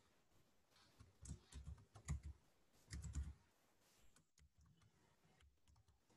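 Computer keyboard being typed on: three short runs of key clicks in the first half, then only a few faint clicks.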